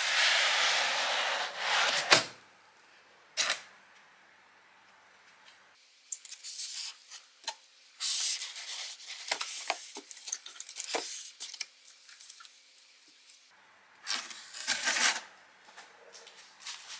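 Hands rubbing against a foam packing insert, then handling cardboard packaging: scraping and rustling in several spells, with a sharp knock about two seconds in and another a little later.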